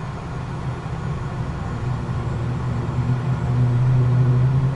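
Cessna Citation business jet's turbofan engine spooling up during its start, just after light-off, heard from the cockpit. It is a steady low hum that grows louder throughout.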